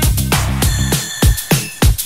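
Background electronic dance music with a fast, steady beat. About halfway through, the bass line drops out, leaving a few heavy drum hits.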